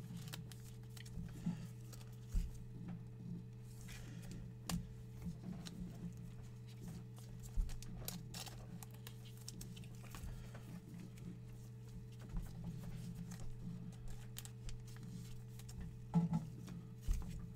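Trading cards handled by gloved hands: soft rustles and light scattered clicks as glossy cards slide over one another, over a steady low hum.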